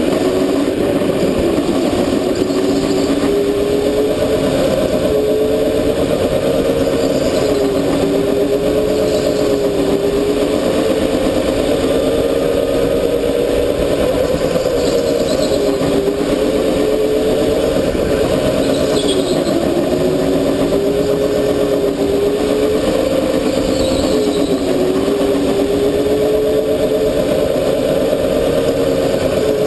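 Go-kart motor running hard, heard from the kart itself, over continuous laps. Its pitch climbs on each straight and drops sharply into each corner, every few seconds.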